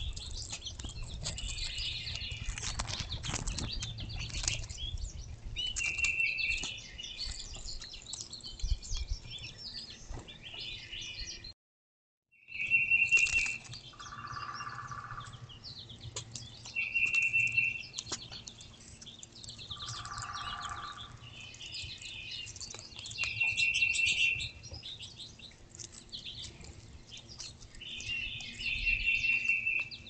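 Small songbirds chirping and singing, one bird repeating the same short phrase every five or six seconds. Twice a lower, fuller call stands out. The sound drops out for about a second around twelve seconds in.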